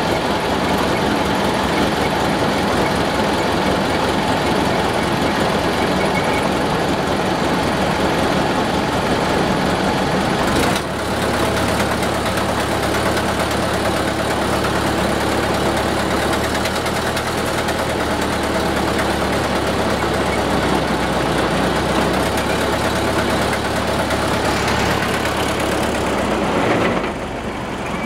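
Boat engine running steadily as the boat moves along, loud and even, with a brief drop in level about eleven seconds in and again near the end.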